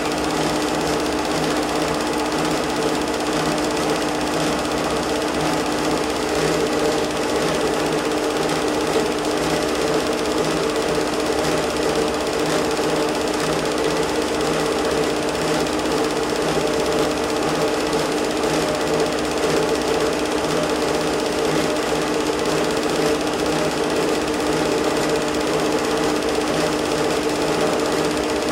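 Home-movie film projector running: a steady mechanical whir with a fast, even pulse from the film advance beneath it.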